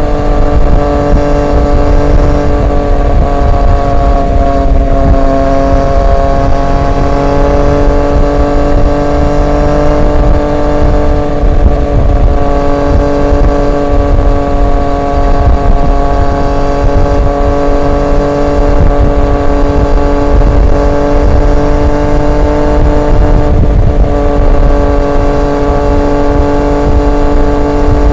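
Triumph Street Triple 765 RX's inline three-cylinder engine running through an SC Project S1 exhaust at steady cruising revs, its pitch easing slightly a few seconds in and then holding level, over a low rumble of wind and road noise.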